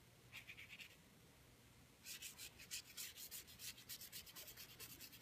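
Faint, quick scratchy strokes of a paintbrush scrubbing back and forth over paper coloured with watercolour pencils: a short run about half a second in, then a steady run of several strokes a second from about two seconds in.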